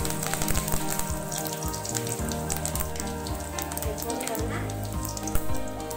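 Mustard seeds, urad dal and cumin sizzling in hot oil, with frequent sharp crackles as the mustard seeds pop.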